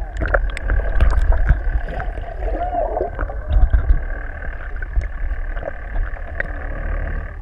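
Muffled underwater sound picked up by a submerged action camera in its housing: a steady low rumble of water with scattered sharp clicks and crackles, and a short wavering tone about halfway through.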